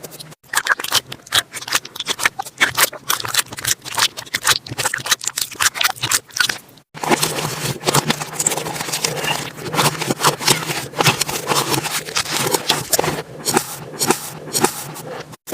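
Slime being squished and poked, making a dense run of crackling clicks and pops, with two brief silent breaks where the clips change.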